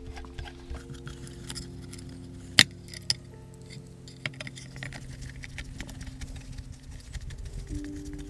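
Hand screwdriver driving small screws into the metal back cover of an LED flood-light housing: scattered small metallic clicks and clinks, the sharpest about two and a half seconds in.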